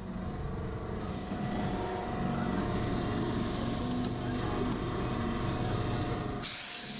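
A steady low mechanical hum of a running motor or engine, changing abruptly about six and a half seconds in.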